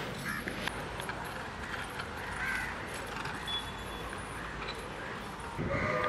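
Outdoor ambience with crows cawing now and then. Near the end, a train horn starts sounding as a train rumbles up, growing louder.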